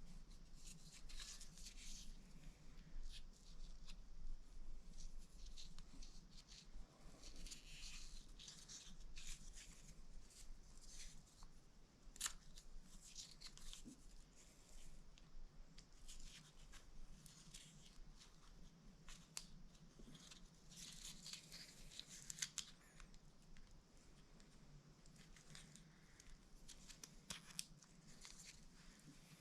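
Faint handling sounds of an unboxing: scattered soft clicks and brief rustles of packaging and parts being handled, over low room hum.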